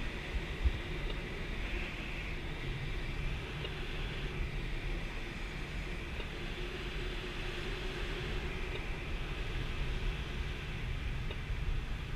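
Steady rush of air around the canopy and cockpit of a Schleicher ASK 13 two-seat glider in unpowered flight, with a brief low knock just after it begins.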